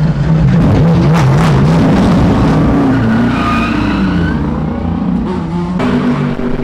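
BMW M6 GT3 race car's twin-turbo V8 running as the car pulls out of its pit box, the engine note wavering and then rising as it accelerates away down the pit lane.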